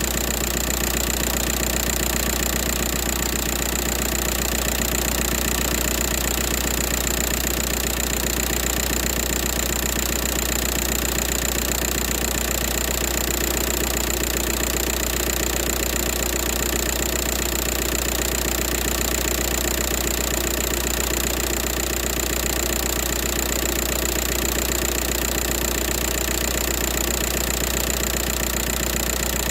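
2004 Volkswagen Jetta TDI's 1.9-litre four-cylinder turbodiesel idling steadily.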